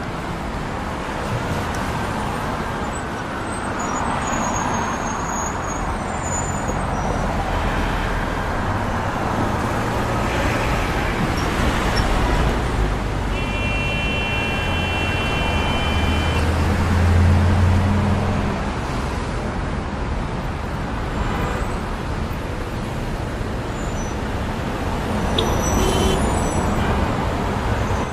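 City street traffic: a continuous wash of passing cars and engines, with a heavy vehicle's low engine rumble swelling past about two-thirds of the way in. A high steady tone sounds for about two seconds just before it, and a few sharp clicks come near the end.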